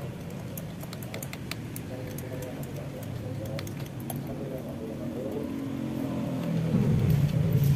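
Light metallic clicks and taps of hands working a motorcycle carburetor and intake manifold loose, over a steady background vehicle hum that grows louder near the end.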